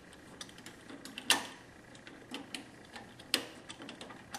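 Light metallic clicks and taps of a nut, bolt and washers being fitted by hand onto a battery charger's rectifier plate, with two sharper clicks, one about a second in and one after about three seconds.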